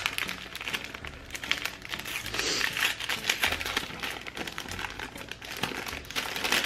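Crinkly iridescent plastic packet rustling and crackling as hands handle it and pull it open, a dense run of small crackles.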